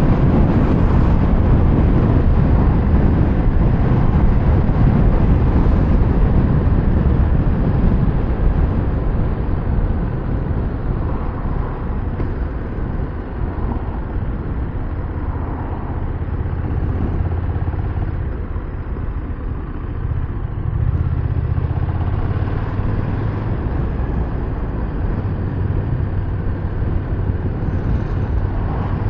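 KTM 1390 Super Duke R's V-twin engine running on the move, under heavy wind rush on the microphone. The engine note eases off between about eight and twenty seconds in, then picks up again.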